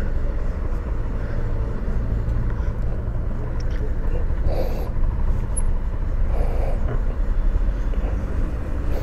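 Motorcycle engine running with a steady low rumble under way, with a couple of brief hissing swells of passing traffic or wind about halfway through.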